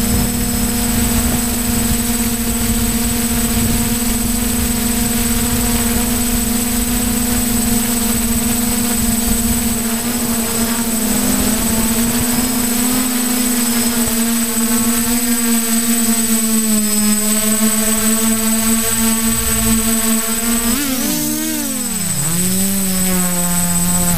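Multirotor drone's electric motors and propellers heard from its onboard camera, a steady buzzing drone with a thin high whine above it and wind rushing over the microphone in the first half. Near the end the pitch drops and swings up and down several times as the throttle changes while it comes down to land.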